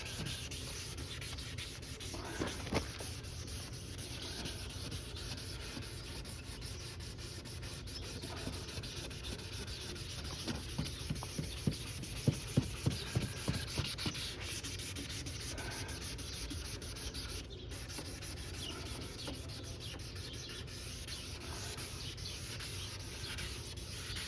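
Sandpaper rubbed back and forth by hand over a plastic car headlight lens: a steady scratchy rasp of repeated strokes, sanding one direction and then another to cut the yellowed surface off. A run of louder, sharper strokes comes about halfway through.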